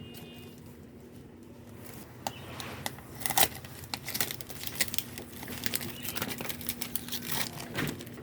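Packaging material crinkling and tearing in irregular crackles, starting about two seconds in, over a steady low hum.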